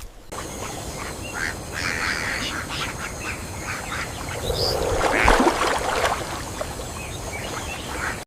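Animal calls over a steady, noisy outdoor background, loudest about five seconds in.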